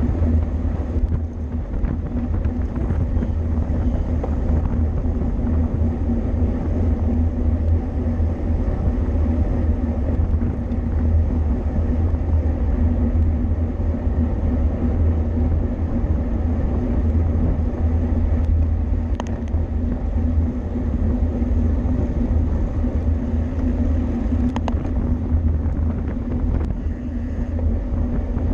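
Steady low rumble of wind and road noise from riding in a bicycle criterium race.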